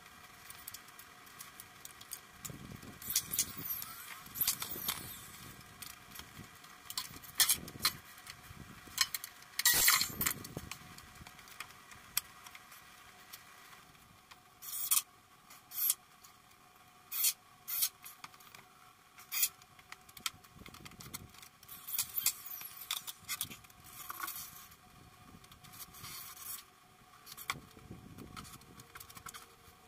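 Cordless drill driving screws into pine framing boards in repeated short bursts of about half a second each, with sharp knocks of the wood being handled in between.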